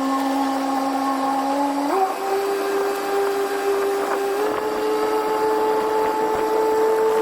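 A boat's outboard motor running under way with a steady whine, its revs stepping up abruptly twice: about two seconds in and again about four and a half seconds in.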